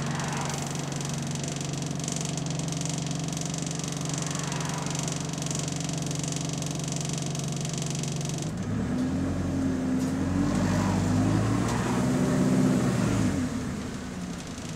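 A turbocharged bus engine heard from inside the passenger cabin. It drones steadily at idle with a high hiss, then about two-thirds of the way in the hiss cuts off and the engine pulls away, its note rising through the gears before easing off near the end.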